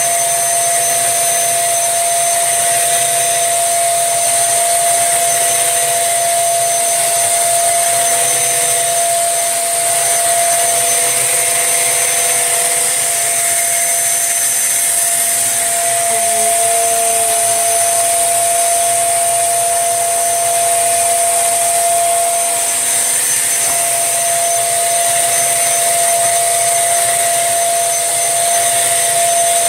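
Tesco own-brand 1800-watt bagless upright vacuum cleaner running steadily, very noisy, with a constant high whine over its rushing airflow as it vacuums powder from carpet.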